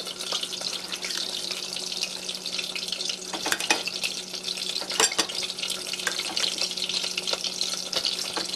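Meat frying in oil, a steady sizzle, with a few sharp clicks of a knife blade against the plate as a cucumber is sliced, the loudest about five seconds in.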